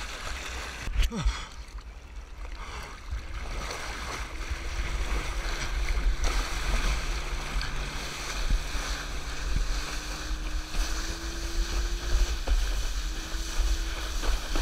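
Water rushing and splashing against a towed wakeboard, with wind buffeting the action-camera microphone. The sound grows louder about four seconds in as the rider is pulled up. Behind it runs the faint drone of the tow boat's engine, its pitch rising slowly as it pulls.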